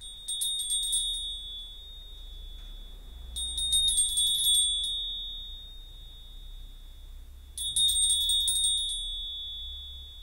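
A small hand bell rung three times, each time a quick flurry of strikes. Its high ring carries on and slowly fades between the three ringings.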